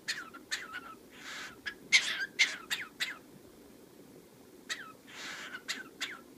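Cockatiel making a hoarse, smoker-like cough twice, set among clusters of short, sharp calls that fall quickly in pitch.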